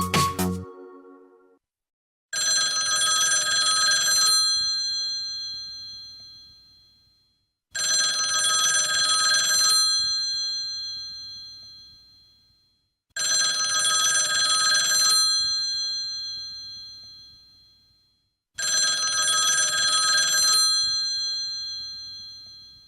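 Alice Mobile AM-F100 phone's bell-style ringtone played through its own speaker: four rings about five seconds apart, each two seconds of rapid ringing that then dies away.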